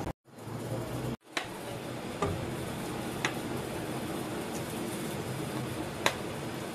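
Battered chicken pieces frying in hot oil in a wok: a steady sizzle with a few sharp pops, the loudest near the end.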